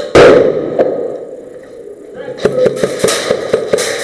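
A single loud bang right at the start that rings on for about a second in the enclosed stairwell, followed from about halfway through by a string of sharp airsoft shots and BB hits, several a second and unevenly spaced.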